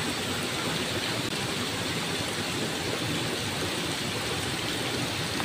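Flowing river water making a steady, even noise.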